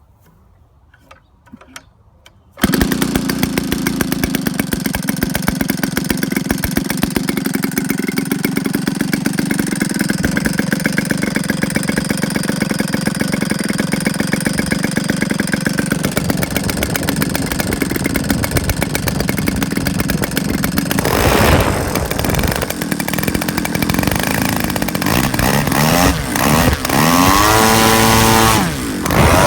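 A brand-new Bull Engine BE 62cc gasoline RC aircraft engine turning a 24x8 beechwood propeller. After a few faint clicks it catches abruptly about two and a half seconds in and runs steadily at idle. After about twenty seconds the throttle is worked, with rising and falling revs near the end before it settles at a higher speed.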